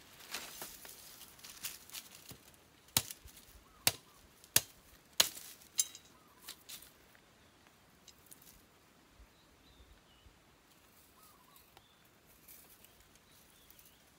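A series of sharp knocks, about five strong strikes roughly two-thirds of a second apart a few seconds in, then softer scattered ticks and handling noises.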